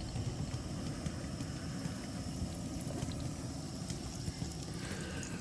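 Fish frying in a pan over a camp stove: a steady low rush with a faint sizzle.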